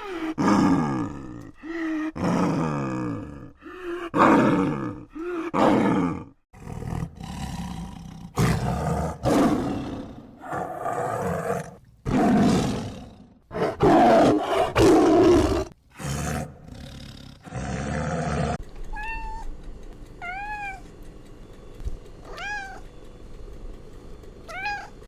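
Animal calls: a run of loud, harsh, pitched calls, each falling in pitch, repeated every second or so. About three quarters of the way through they give way to a few short chirps that rise and fall, over a quiet background.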